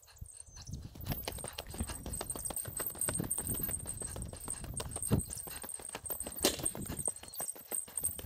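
A hiker's footsteps, walking at a steady pace on a mountain vehicle road: a continuous run of short scuffing steps.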